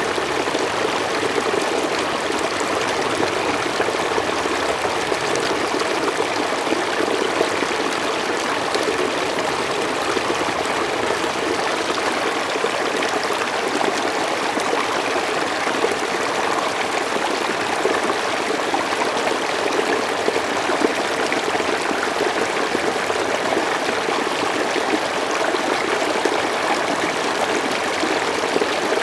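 Mountain stream water flowing in a steady, even rush.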